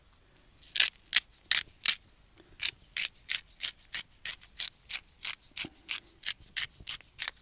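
Pepper grinder being twisted to grind pepper: a run of crisp clicks at about three a second, starting about a second in.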